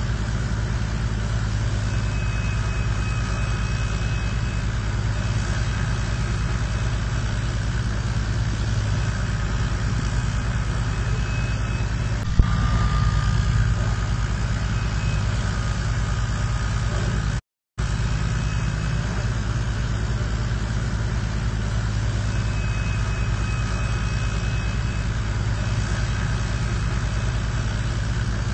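1979 Fiat 640 tractor's four-cylinder diesel engine running steadily under load, driving a wheat thresher, with faint thin whines from the machinery above the engine note. A single knock about twelve seconds in, and the sound cuts out for a moment a little past halfway.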